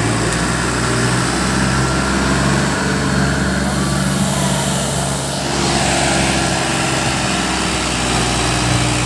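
Mahindra tractor's diesel engine running with a steady low note as it works to drive the tractor through deep mud. The engine note changes about five and a half seconds in.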